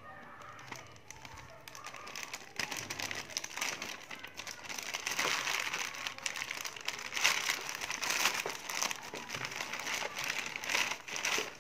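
Plastic courier mailer bag crinkling and rustling as hands pull it open. It is a dense, irregular crackle that grows louder after about two seconds.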